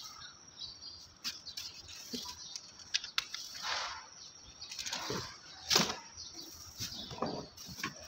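Plastic packaging and a cardboard box rustling as a pressure washer's spray gun and hose are lifted out and handled: a string of short swishes with a few small clicks, the loudest swish about six seconds in.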